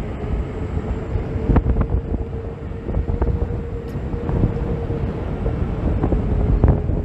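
Gotway (Begode) MSX 84-volt electric unicycle riding at speed: its hub motor whines in a steady tone that rises a little and then falls back as the wheel speeds up and slows. The whine sits over heavy wind rumble on the phone's microphone, with a few sharp knocks from bumps.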